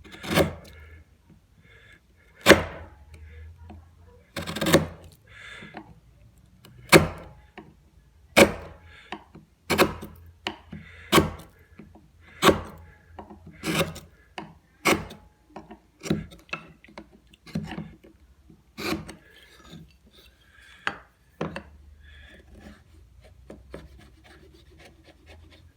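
Chisel being worked into walnut and mahogany to cut an arch: a dozen or more sharp knocks, irregularly spaced, with faint scraping of the blade between them. The knocks stop about four seconds before the end.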